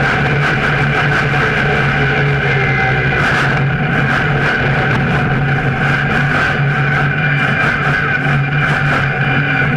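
Monster truck engine running loud and steady as the truck drives, heard close from a camera mounted on the chassis, with a constant low hum and no sharp revs or impacts.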